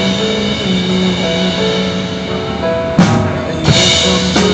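Instrumental backing track of a pop ballad with sustained keyboard-like notes. About three seconds in, a live acoustic drum kit comes in with loud crash-cymbal hits and drum strokes, a second crash following under a second later.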